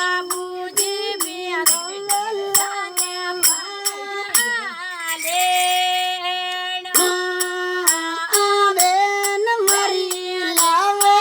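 A singer holding long, gently bending notes in a traditional Indian style over a steady beat of sharp percussion strokes, about three a second. The beat drops out for about two seconds midway while one long note is held.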